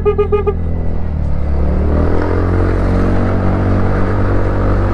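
Scooter engine running under the rider, pulling up through the gears with its pitch rising from about two seconds in. Wind rumbles on the helmet-mounted microphone. A horn gives about five quick toots right at the start.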